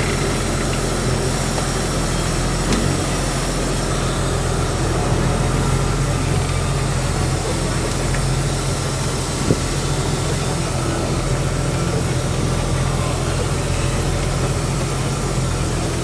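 Heavy truck's diesel engine running steadily, heard from inside the cab, with one brief knock about halfway through.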